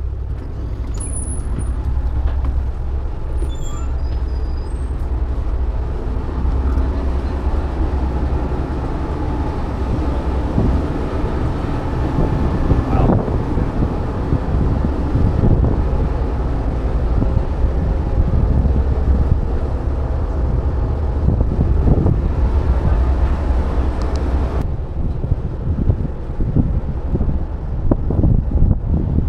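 Steady low drone of a car ferry's machinery, with a constant hum. Scattered irregular thumps from the deck sound over it through the middle and near the end.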